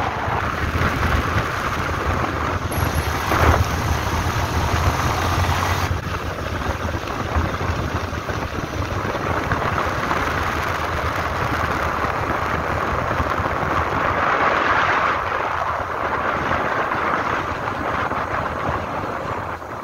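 Wind rushing over the microphone of a moving vehicle, with its engine running steadily underneath.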